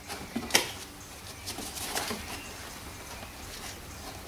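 A few light plastic clicks and knocks, the sharpest about half a second in, as a plastic trim cover beside a VW Touran's rear light cluster is lifted and its clips let go.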